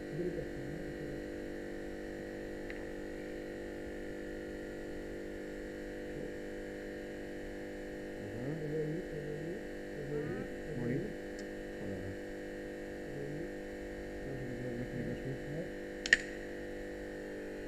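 A steady hum with faint murmuring, broken about sixteen seconds in by a single sharp snap as the jaws of a hand cutter bite on a ring being cut off a finger.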